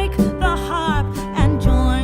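Background music: a wavering melody line over a changing bass line.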